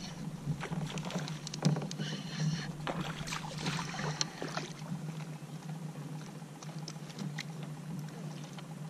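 Spinning reel being cranked as a small trout is reeled in to the kayak, with bursts of reel whir about two and four seconds in and scattered small clicks, over a steady low hum.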